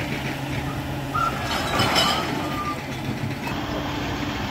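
Skip truck's engine running while its hydraulic loader crane works, with a clatter of debris about two seconds in and a couple of short high beeps.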